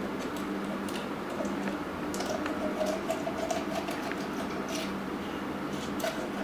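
Knife trimming fat from a raw whole chicken: small wet squishes and scattered light clicks of the blade on skin and cutting board, over a steady background hum.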